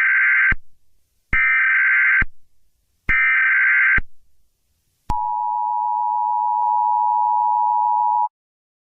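Emergency Alert System signal: three short data bursts of the SAME header, about a second each with a pause between them, then the steady two-tone attention signal for about three seconds, which cuts off suddenly.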